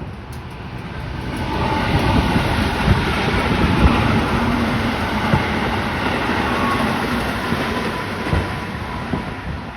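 A passing train rumbles, swelling over the first few seconds and slowly fading. A few short, dull thumps from distant fireworks bursts sound over it.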